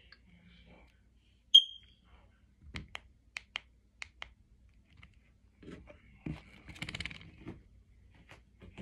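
A single short, high-pitched electronic beep about a second and a half in, the loudest sound here. A run of about five sharp clicks follows, then low thumps and shuffling as someone moves about.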